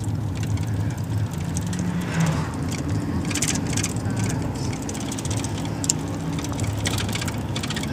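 Minibus engine running steadily as the vehicle drives, with its low hum shifting in pitch and short rattles or hisses now and then.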